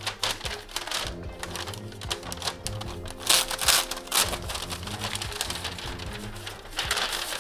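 A USPS Priority Mail Express mailing envelope crinkling and rustling as it is handled and opened, with louder bursts of crackling about three seconds in and again near the end. Background music runs underneath.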